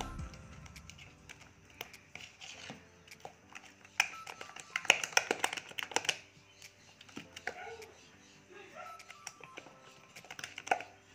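Soft, sticky bread dough being beaten by hand in a metal bowl: irregular wet slaps and squelching clicks, thickest and loudest about four to six seconds in. The dough is still heavy and stiff.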